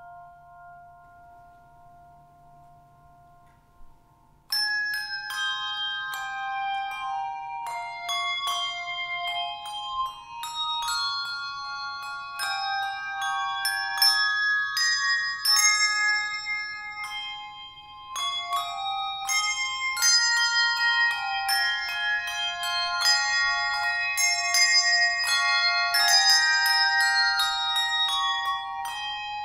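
Handbell choir playing a carol: struck bell notes ringing on in melody and chords. For about the first four seconds only a faint, fading chord lingers, then the playing starts suddenly.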